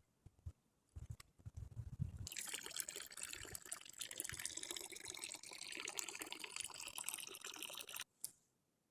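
Liquid poured steadily into a container for about six seconds, stopping abruptly, with a few low knocks just before the pour starts.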